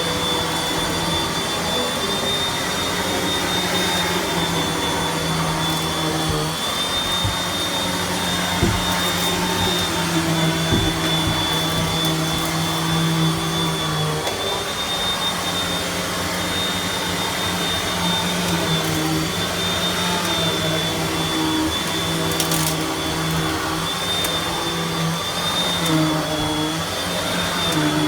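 Beldray Turbo Swivel upright vacuum cleaner running while vacuuming carpet. There is a steady high whine over a lower hum that shifts in pitch every few seconds.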